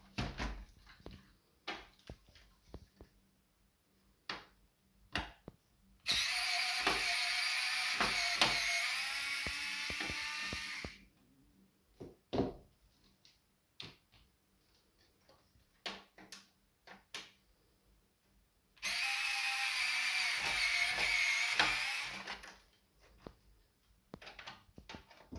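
Small electric screwdriver whirring twice, about five seconds and then three seconds, backing out screws as the cassette deck's front panel is taken off. Between the runs come light clicks and knocks of the metal chassis and plastic panel being handled.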